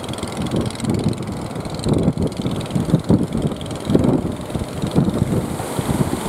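Wind buffeting the microphone in irregular gusts over a steady wash of surf.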